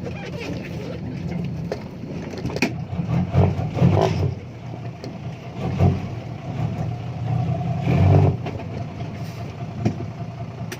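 Six-wheel dump truck's engine running as it drives, swelling louder a few times, with scattered knocks and rattles.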